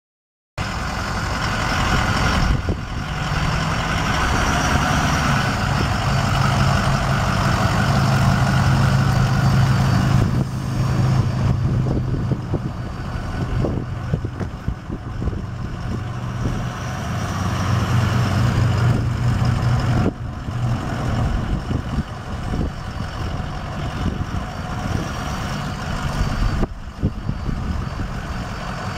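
2007 Ford F550 Super Duty's 6.0-litre V8 turbo diesel running as the truck drives slowly across the lot. The engine note swells and eases, loudest about a third of the way in and again a little past the middle.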